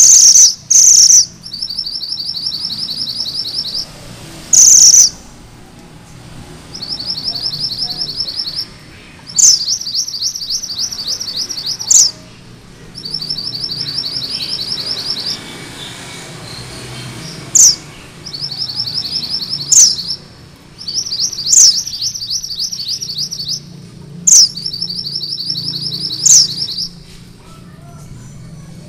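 A mantenan gunung merah singing its rolling trill (ngerol): fast, even runs of high notes about one to two seconds long, repeated with short pauses. Several runs open with a loud, sharp rising note, and there are two loud harsh bursts near the start.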